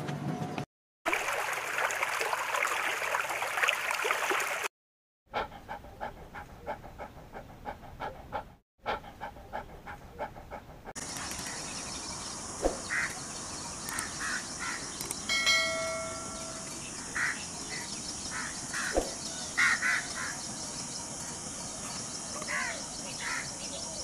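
Outdoor scrubland ambience: a steady high insect drone with scattered short bird calls and one louder, held, pitched call about two-thirds of the way through. It follows a few seconds of separate short clips split by brief silences: a rustling hiss, then a fast run of clicks.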